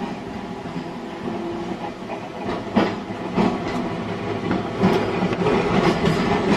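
Blackpool tram running on rails, its wheels knocking over rail joints several times, growing louder.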